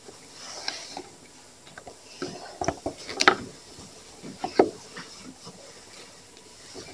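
Quiet pause in a small hall: scattered light clicks and knocks, with a few brief soft voice sounds from the listeners.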